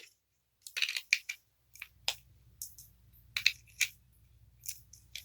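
Small plastic Beyblade parts being handled, giving about a dozen sharp, irregular clicks and clacks.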